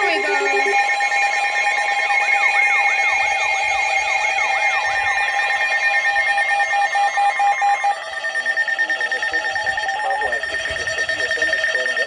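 Several weather alert radios sound their alarms together for a severe thunderstorm warning: a repeating rising-and-falling siren-like warble over steady tones. About eight seconds in, the mix changes to rapid beeping over a steady high tone.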